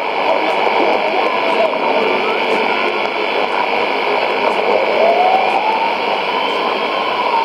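Weak shortwave AM signal on 17850 kHz through a Sony ICF-2001D receiver's speaker: steady hiss and static with a steady high tone, the broadcast buried under the noise. A faint whistle glides up in pitch about five seconds in and slides back down near the end.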